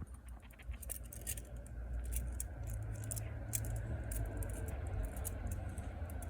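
Blunt metal practice butterfly knife (balisong) being flipped: irregular light metallic clicks and clinks as the handles swing and knock against each other and the blade, over a low steady hum.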